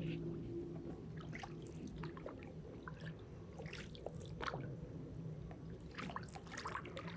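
Water dripping and lightly splashing around a small raft as it is rowed through floodwater, with scattered small drips and splashes over a faint, steady low hum.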